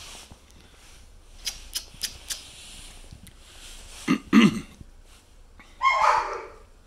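Three-week-old German Shepherd puppies giving short puppy calls: a brief whine that bends up and down about four seconds in, then a louder, rougher yip about six seconds in, after a few light ticks.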